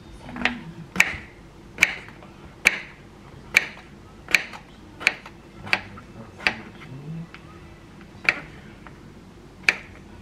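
Kitchen knife cutting through a king oyster mushroom and tapping the wooden cutting board: crisp single chops about once a second, with a short pause near the end.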